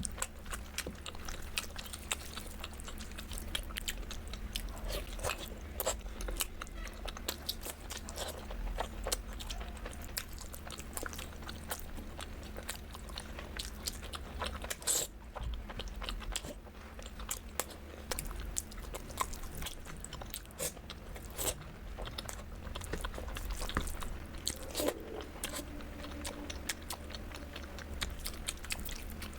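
Close-up eating sounds: a person biting into and chewing crunchy food, with many quick irregular crackles and crunches over a steady low hum.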